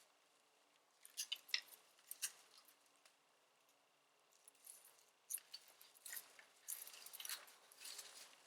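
Faint, irregular crackling and snapping of dry leaves and twigs on the forest floor, in two spells with a pause between.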